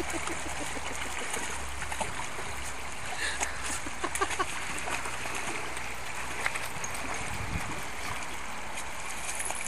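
Shallow rocky river flowing steadily, with splashing from a dog wading through it and pushing its head into the water; a cluster of sharper splashes comes a few seconds in.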